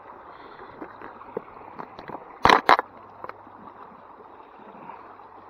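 Creek water running over rocks in small rapids, with two sharp knocks close together about two and a half seconds in and a few lighter ticks.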